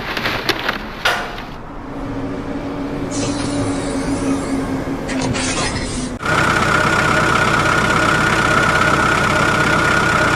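Diesel engine of a construction vehicle running steadily. About six seconds in it turns abruptly louder, with a high whine over the engine note.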